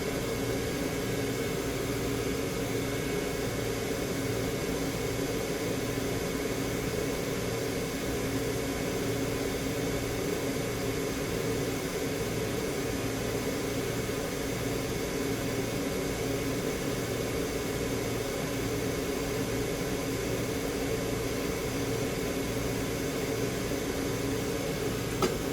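Soldering fume extractor fan running steadily: an even whir with a low, steady hum underneath.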